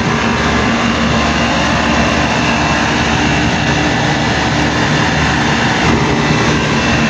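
Air-conditioning unit running steadily with its compressor engaged, a loud even mechanical hum, while it is being charged with refrigerant on the low side.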